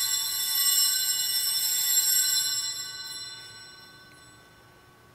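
Altar bell rung at the elevation of the chalice at the consecration: a high, many-toned ringing that swells a little twice, then fades away over the last couple of seconds.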